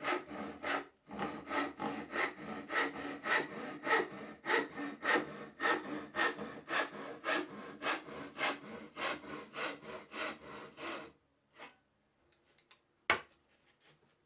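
Hand saw cutting wood with steady back-and-forth strokes, about two a second, stopping about eleven seconds in. A few light clicks follow, then a single sharp knock.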